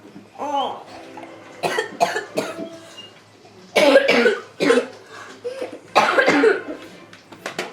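A child coughing in repeated fits, part of a cough that won't stop: a run of three quick coughs about two seconds in, another run around four seconds, and one more long cough around six seconds.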